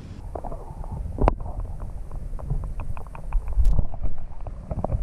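Muffled water sloshing and low rumbling, heard through a microphone dipped partly under the surface of a shallow rock pool, with scattered small clicks and a sharp knock about a second in.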